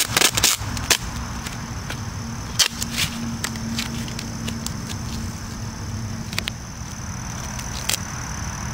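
Adhesive tape ripped off the roll in a few short tearing bursts near the start and again around two and a half to three seconds in, with lighter crackles as it is pressed along the canoe's gunwale, over a steady low hum.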